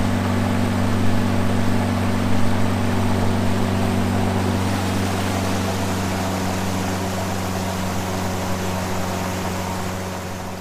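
Mercury outboard motor running steadily at cruising speed, a constant low drone, with the rush of water along the boat's hull.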